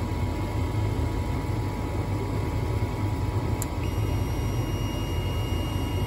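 Gas furnace cabinet running with a steady low hum. About three and a half seconds in a click is heard, and a non-contact voltage tester starts a steady high beep: power has reached the hot surface igniter.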